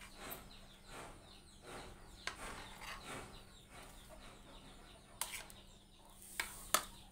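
A few light taps and scrapes of a metal spoon on a plastic bowl as grated young coconut is scooped out, the sharpest taps a little after five seconds and twice near the end. Faint bird chirps in the background.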